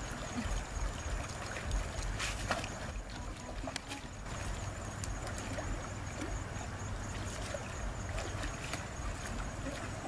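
Outdoor water ambience: a steady wash of trickling, flowing water over a low rumble, with a couple of faint knocks.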